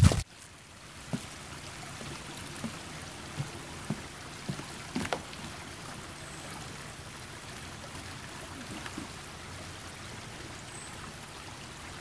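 Faint, steady trickle of water, like a small forest creek, with a few light clicks scattered through the first half.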